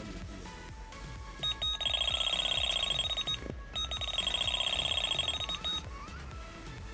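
Delkim carp bite alarm sounding a run: a fast string of high electronic beeps as a fish pulls line off the rod. The beeping starts about a second and a half in, breaks off for half a second, then resumes for about two more seconds.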